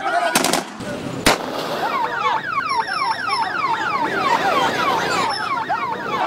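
A few gunshots in the first second and a half, the last a single sharp crack. Then an electronic vehicle siren yelps in rapid falling sweeps, about three a second, stopping near the end.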